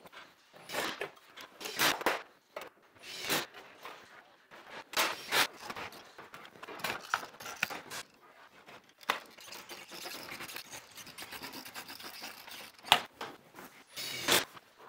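Galvanized steel ceiling sheet scraping and rubbing in short, irregular strokes as it is cut and worked around a ceiling opening, with two sharper, louder strokes near the end.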